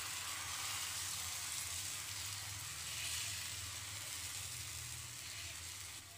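Besan uttapam batter sizzling on a hot, oiled tawa as a ladle spreads it out: a steady frying hiss.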